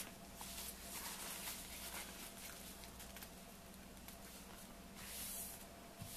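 Paper napkins rustling faintly and brushing against a tabletop as hands fold them into triangles and smooth them flat, with a longer swish about five seconds in.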